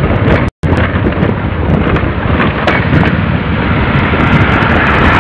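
Heavy wind rumble on the microphone of a moving motorcycle, with engine and road noise underneath. The sound cuts out completely for a moment about half a second in.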